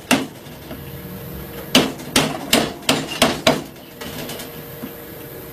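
A chisel being struck into wood, a quick run of about six blows a couple of seconds in, chopping out the shavings opening of a wooden rebate plane.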